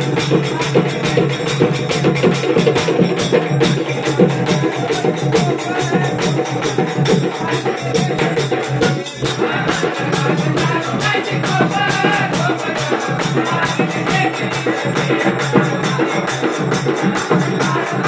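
Devotional folk music played live: a large double-headed drum struck with a stick keeps a fast, steady rhythm with hand percussion. After a short break about nine seconds in, a singing voice joins.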